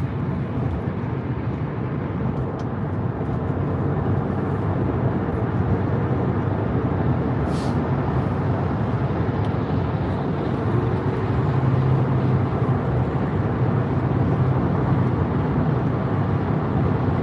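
Steady road and engine noise of a car cruising at highway speed, heard from inside the cabin, a low drone under a hiss of tyres that grows a little louder about four seconds in.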